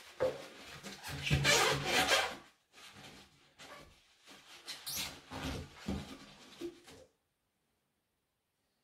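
Paper towel rustling and rubbing as it is wiped over a part by hand, in irregular strokes. It is loudest in the first two and a half seconds, softer after that, and stops about seven seconds in.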